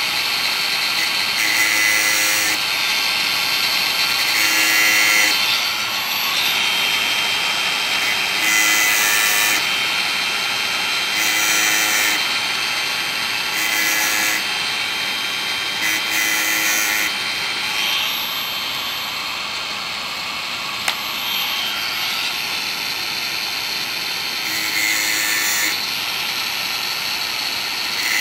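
Makita DGA504 cordless angle grinder with a 115 mm stainless-steel cutting disc, running steadily while it sharpens a chainsaw chain's cutters tooth by tooth. Each cutter gets a harsh grinding pass of about a second, every few seconds, with a longer pause in the latter half.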